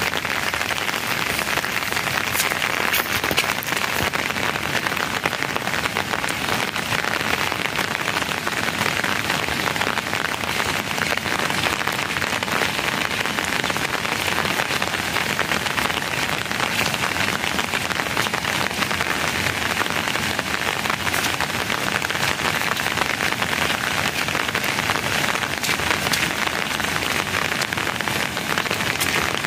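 Steady rain falling: a dense, even hiss speckled with fine pattering drops.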